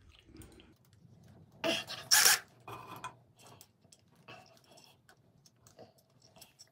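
A thin metal tool scraping and clicking against a wooden plug jammed inside a hole saw as it is pried out. Two short harsh scrapes come about two seconds in, followed by scattered light clicks.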